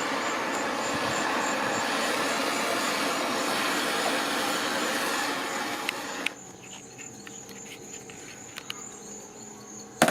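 Propane torch flame hissing steadily, cut off abruptly about six seconds in. Crickets then chirp faintly, and there is a sharp knock near the end.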